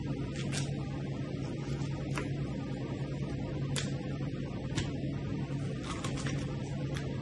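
A steady low electrical hum, with a few light, sharp clicks and scrapes of a knife cutting along a fish and tapping the cutting board.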